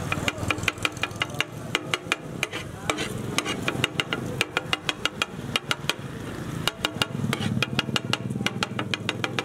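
Rapid, rhythmic clatter of a metal spatula chopping onions, tomatoes and green chillies on a hot tawa griddle, about five or six strikes a second with brief lulls, over a light sizzle.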